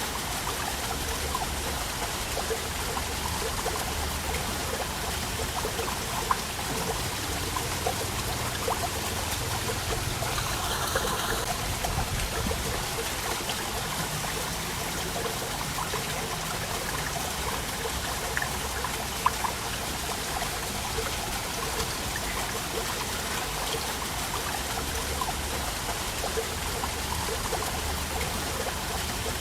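Waterfall: a steady rush and splash of falling water, with a few brief sharper splashes.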